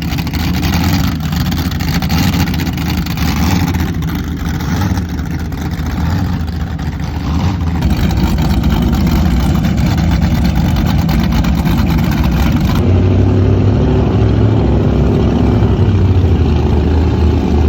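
Supercharged engines of old-school Cigarette speedboats idling loudly with a deep, steady exhaust note. The sound shifts abruptly about eight seconds in and again about thirteen seconds in, lower and fuller after the second change.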